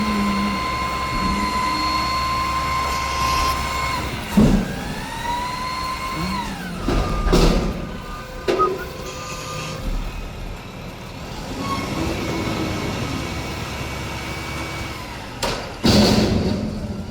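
Mack McNeilus front-loader garbage truck running with a steady high whine that bends up and then back down after about four seconds. Several loud metallic bangs and clanks come in the middle and near the end.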